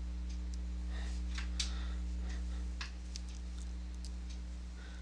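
Faint, irregular clicks of a computer mouse and keyboard, a dozen or so spread over a few seconds, above a steady low electrical hum.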